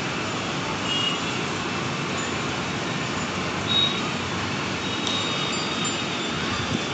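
Steady outdoor background noise, with a few faint, short, high-pitched chirps about a second in, near the middle and toward the end.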